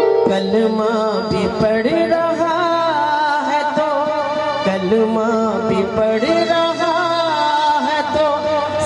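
A woman singing a devotional song in a wavering, ornamented line, accompanied by harmonium with steady held notes and tabla strokes.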